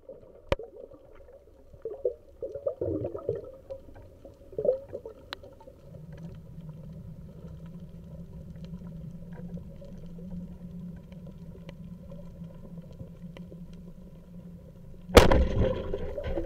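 Underwater ambience picked up by a speargun-mounted camera in its housing: scattered sharp clicks and bubbling, then a steady low hum from about six seconds in. Near the end, a sudden loud thump followed by rushing, splashy noise.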